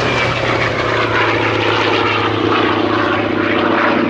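Bristol Centaurus 18-cylinder sleeve-valve radial engine of a Hawker Fury ISS in flight, a loud, steady drone with propeller noise.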